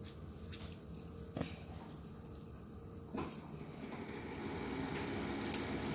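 A lime squeezed by hand over a bowl of dipping sauce: faint squishing and dripping juice, with a few soft clicks.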